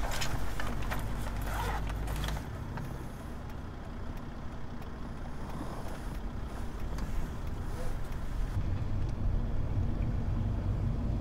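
A taxi being driven through city streets, heard from inside the cabin: a steady low engine and road rumble that eases a couple of seconds in and builds again near the end.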